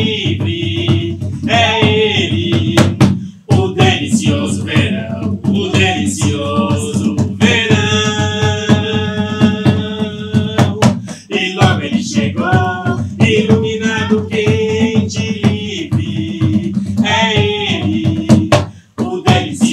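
A song sung in Portuguese, accompanied by a strummed acoustic guitar and a small hand drum. It pauses briefly between phrases a few times.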